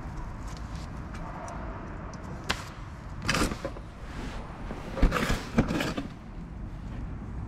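Hands working at a car's front brake caliper: a sharp click, then short scraping and knocking noises in two spells, the second with two sharp knocks, over a steady low hum.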